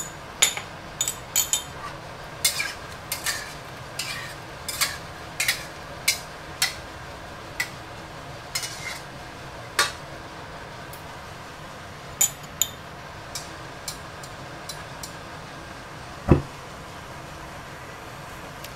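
Metal spatula stirring tomato sauce in a stainless steel wok, clinking and scraping against the pan about once or twice a second, then more sparsely after about ten seconds, as starch slurry is stirred in to thicken the sauce. One heavier knock about sixteen seconds in is the loudest sound.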